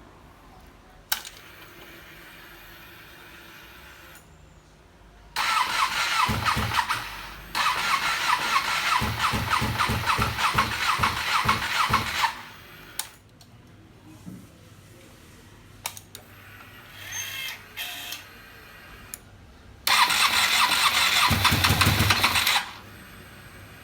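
Ducati 959 Panigale's L-twin engine being turned over on its electric starter in three separate cranking attempts, a whining starter with an even pulsing rhythm. Each attempt stops abruptly without the engine settling into an idle.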